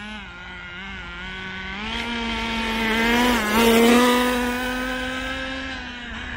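Small glow-fuel nitro engine of an HSP 1/10 scale short course RC truck running under throttle. Its pitch climbs and it grows louder from about two seconds in as the truck speeds up, peaks around the middle with a brief dip in pitch, then slowly eases off.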